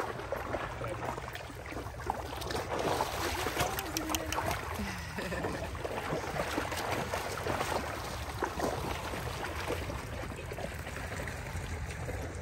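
Several dogs wading and running through a shallow muddy pond, water splashing and sloshing around their legs in irregular bursts.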